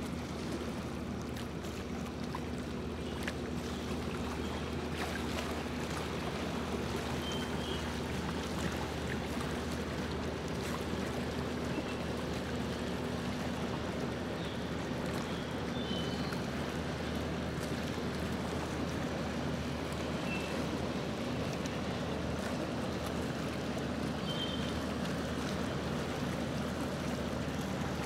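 Small boat under way on a lake: a steady low motor hum with water washing along the hull. A few faint high chirps come and go.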